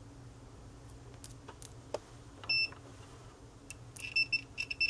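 Digital multimeter's continuity beeper: a few faint clicks, then one short beep about two and a half seconds in, then a run of short, broken beeps from about four seconds in as the probes make and lose contact. The beep signals a closed circuit across the probes.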